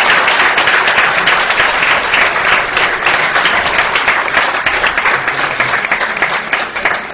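Audience applauding, a dense clapping that thins out and fades over the last couple of seconds.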